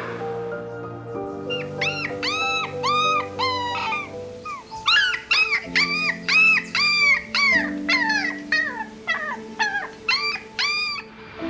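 An animal giving a long series of short, high, arching yelping calls in quick runs, with a brief pause about four and a half seconds in, over steady background music.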